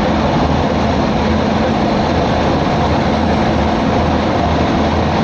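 Steady, unbroken low rumble of a standing train's engine running at idle.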